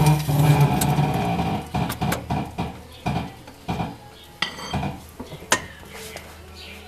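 A run of metallic clinks and clanks, like hand tools knocked against metal parts under the car, busiest in the first second or two and then scattered knocks.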